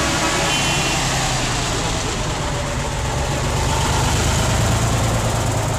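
Heavy lorry diesel engines running at low speed as the lorries drive slowly past, a steady low hum that grows louder about four seconds in.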